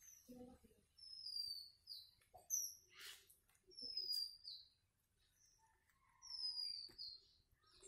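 A bird singing, repeating a phrase of high whistled notes that slide down in pitch, roughly every one and a half to two seconds. A brief hiss comes about three seconds in.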